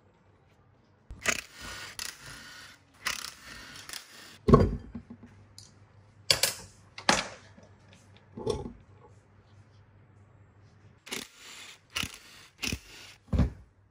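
Old cast-iron bench grinder being dismantled: metal scraping and sliding as the end housing is worked off the shaft, a heavy thump, then scattered knocks and clanks. Near the end come several short bursts from a cordless impact driver on the housing bolts.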